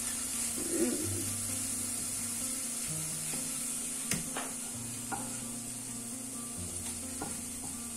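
Basa fish fillets sizzling steadily in oil in a non-stick frying pan, with a few light taps and scrapes of a wooden spatula as the pieces are turned.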